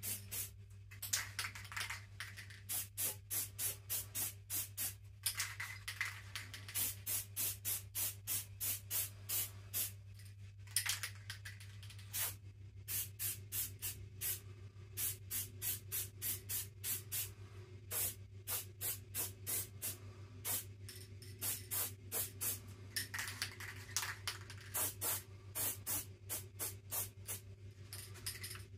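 Aerosol spray-paint can spraying in many short bursts, a few a second, with a steady low hum underneath.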